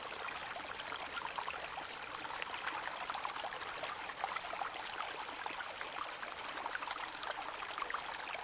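A small brook trickling and babbling steadily over stones, with a dense patter of small splashes and bubbles.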